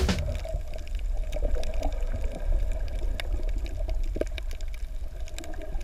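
Underwater sound picked up by a GoPro in its housing: a steady low rumble of moving water, with scattered faint clicks and a faint steady hum.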